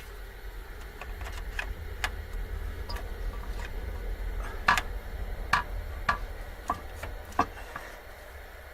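Irregular light metallic clicks and clinks of hand tools and parts during work on the upper intake of a Ford E150 van's 351 engine, the loudest few in the second half, over a steady low hum.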